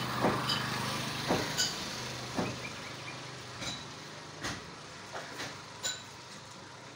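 A motor vehicle's engine hum with traffic noise, fading away over the first three seconds, with scattered short clicks throughout.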